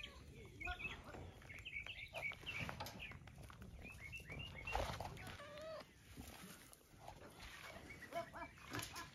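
Several short, pitched calls from farmyard animals, over small birds chirping, all fairly faint.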